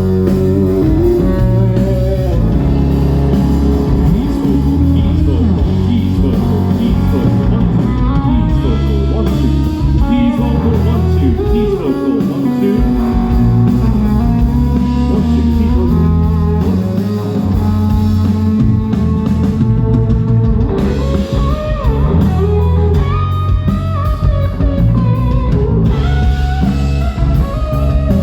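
Blues-rock band playing live: guitar lines over bass and drum kit, loud and steady throughout.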